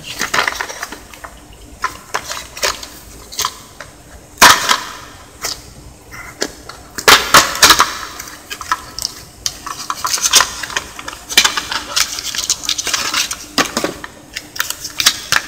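Cardboard box of an ink cartridge being torn open by hand, then the clear plastic blister pack inside handled. Irregular tearing, crackling and clicking, with sharp snaps about four and a half seconds in and again around seven seconds in.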